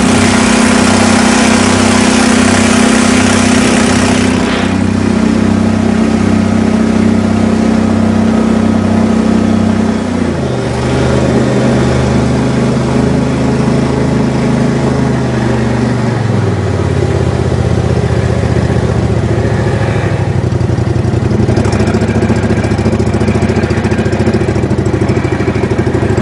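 An engine running steadily, settling to a lower speed about ten seconds in and again a few seconds later.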